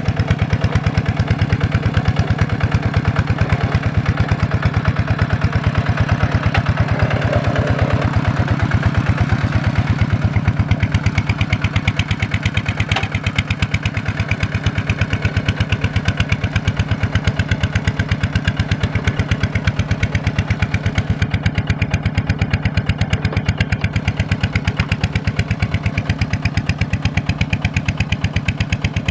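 Kubota single-cylinder diesel engine running steadily, a fast even beat that holds at the same pace throughout.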